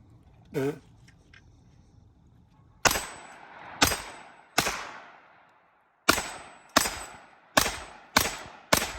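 CZ Scorpion Evo 9mm pistol fired semi-automatically: eight shots at uneven intervals starting about three seconds in, each with a short echoing tail.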